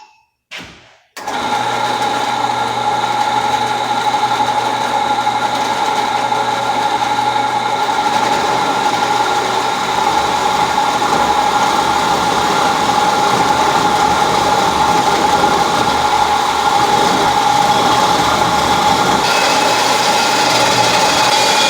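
Electric metal-cutting saw starting up about a second in and then running steadily with a constant whine while it cuts 2x2 steel square tubing.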